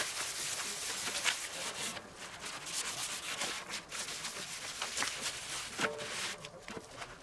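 Kitchen paper rubbing over a steel fire plate wetted with brake cleaner: a run of uneven scrubbing strokes as the plate is wiped clean.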